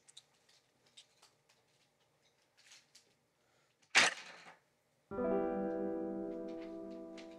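Faint paper rustles and small handling sounds, then a loud, brief rush of noise about four seconds in. About a second later a piano chord is struck and left to ring, slowly fading.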